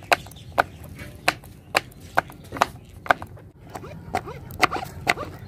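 Knife slicing a green chilli on a plastic cutting board: sharp taps of the blade on the board, about two a second.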